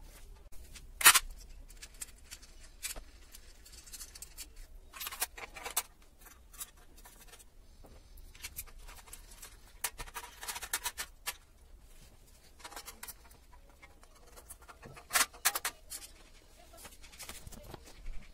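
Scattered clicks, scrapes and clinks of a screwdriver on screws and metal-and-plastic ceiling fan blades being bolted onto the fan's body, with a sharp knock about a second in.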